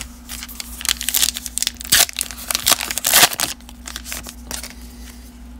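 A 2020 Topps Allen & Ginter trading-card pack's wrapper crinkling and tearing as it is ripped open by hand: a dense run of crackles over the first three and a half seconds, loudest around two and three seconds in, then quieter rustling.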